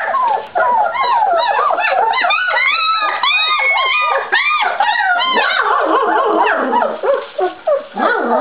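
A litter of Czechoslovakian Wolfdog puppies about two and a half weeks old whining and squealing all at once, many overlapping high cries rising and falling in pitch. The cries thin briefly near the end.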